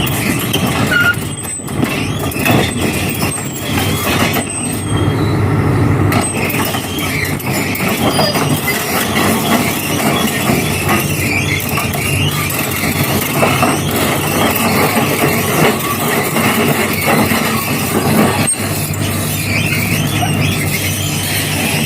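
Radio-controlled model machinery running: a steady motor whir with frequent clicks, from an RC excavator and tow truck at work.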